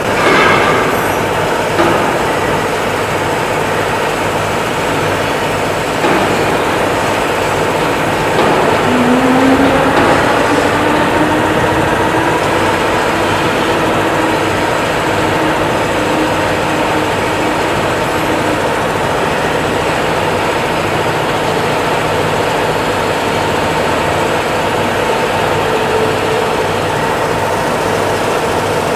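Steady mechanical running noise, like a motor or vehicle, with a whine that rises in pitch about nine seconds in and then holds steady.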